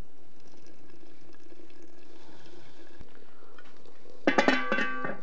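Water boiling at a steady bubble. Near the end comes a brief, louder clatter with ringing tones.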